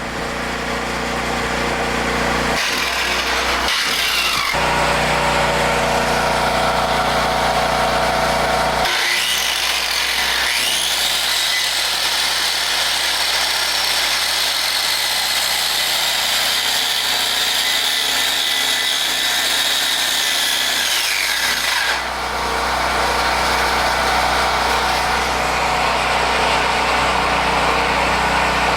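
Power saw cutting wood: the motor whine climbs as the blade spins up about nine seconds in, holds through a long cut, and winds down a little past twenty seconds.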